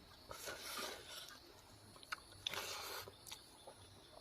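Close-up chewing and eating mouth sounds in two short stretches, with a few sharp clicks in between.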